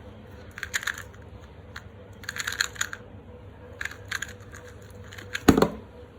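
YJ MGC Elite 2x2 magnetic speed cube being turned fast in bursts of sharp clicking as its layers snap into place during a solve, with one louder thump near the end.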